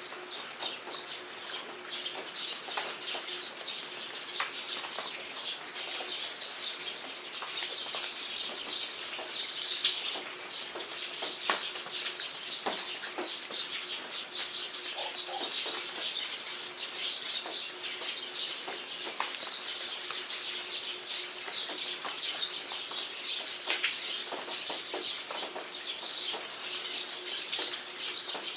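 Rain pattering steadily, with many sharp drip ticks, while small birds chirp throughout.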